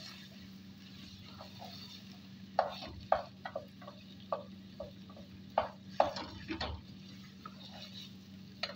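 Wooden spoon stirring and scraping cooked radish in a nonstick pot, with a run of sharp knocks and scrapes from about two and a half to seven seconds in. A steady low hum runs underneath.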